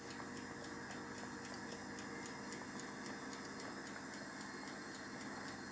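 Electric oven running: a steady hum with fan-like noise and a faint, regular ticking over it.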